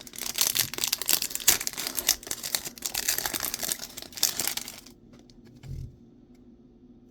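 Trading-card pack wrapper being torn open and crinkled, a dense crackle that stops abruptly after about five seconds, followed by a soft low thump.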